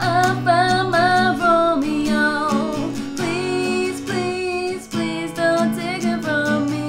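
An acoustic guitar song: the guitar plays sustained chords under a sung vocal melody with vibrato. The vocal phrases break briefly about two and five seconds in.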